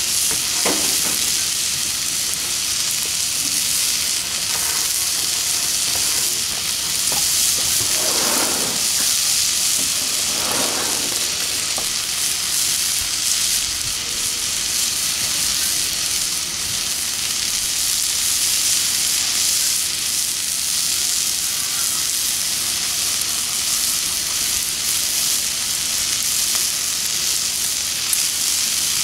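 Steak sizzling steadily on a flat-top griddle, a continuous high frying hiss as the crust builds over low heat.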